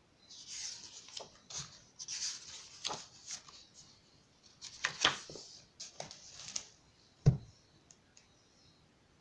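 Paper pages of a hardcover book rustling as they are turned quickly, then a single dull thump about seven seconds in as the book is shut.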